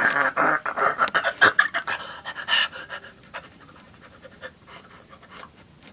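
Rapid, breathy panting over the first two to three seconds, dying away to quiet after that.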